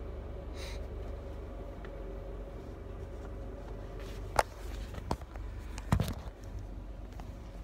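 Steady low hum inside a vehicle cabin, with three sharp clicks and knocks in the second half as a phone is handled.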